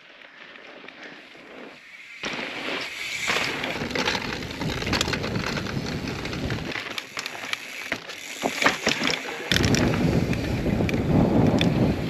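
Mountain bike being ridden on a dirt trail: a rush of tyre and wind noise on the microphone with frequent sharp clicks and rattles, changing abruptly a couple of times and growing louder about nine and a half seconds in.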